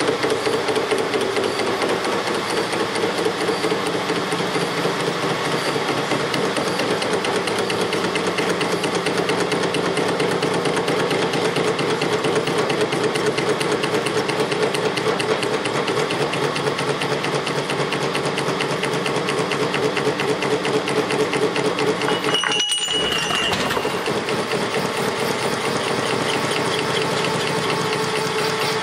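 Metal lathe running with a BMW motorcycle connecting rod spinning on its faceplate as the cutting tool takes metal off the end of the rod to lighten it: a steady machining noise with a fast rhythmic beat from the rotating rod. The sound cuts out briefly about 23 seconds in.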